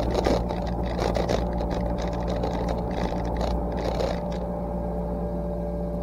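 Yanmar SV40 mini excavator's diesel engine running steadily under work. Irregular cracking and scraping of brush being pushed and broken stops about four seconds in.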